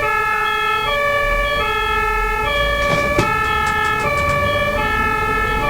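German two-tone ambulance siren (Martinshorn) switching back and forth between a lower and a higher tone, each held about three-quarters of a second, over a low rumble.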